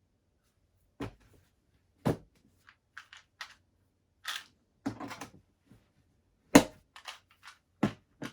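Hard plastic clicks and knocks from a drill bit set and its case being handled: about half a dozen sharp snaps with smaller ticks between, the loudest about two-thirds of the way through.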